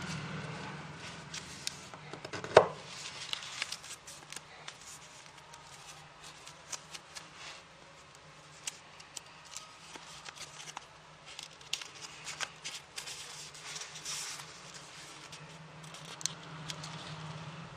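A square of origami paper being folded and creased by hand: scattered crisp crackles and taps of stiff paper, with one sharp louder snap about two and a half seconds in, over a low steady hum.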